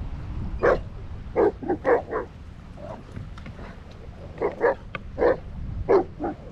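A dog barking repeatedly: two runs of short barks, the first starting under a second in and the second starting about halfway through.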